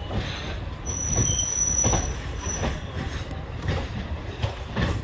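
Passenger train rolling on a curve: the wheels rumble steadily, with irregular clacks over rail joints. A high, thin wheel squeal comes in about a second in and lasts about a second, with a shorter squeal soon after.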